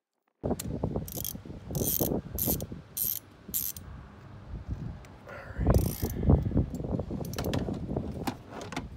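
Socket ratchet clicking in short bursts, about every half second, as it is swung back and forth to loosen a spark plug, with clunks of the tool against the engine. The bursts stop after a few seconds and one more comes near the end.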